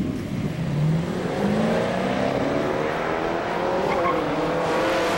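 1969 Shelby GT500's 428 Super Cobra Jet V8 at full throttle on a drag-strip launch, its pitch climbing steadily as the car accelerates, with a brief break in the climb about four seconds in, like a gear change.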